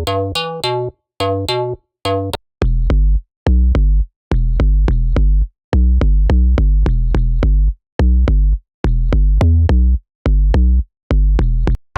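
SynthMaster One software synthesizer presets playing a sequenced riff of short, separated notes in rhythmic phrases with brief silences between them. About two and a half seconds in, a new patch with heavy, deep bass notes takes over.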